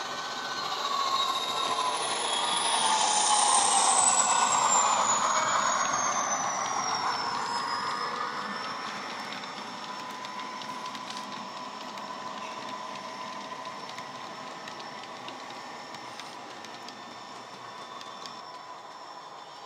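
Model Bachmann Class 57 diesel locomotive's factory DCC sound decoder playing diesel engine sound through its onboard speaker as the train runs by. It is loudest about four seconds in and fades as the train runs away. A high whine falls steadily in pitch over the first several seconds, then a steadier engine tone carries on.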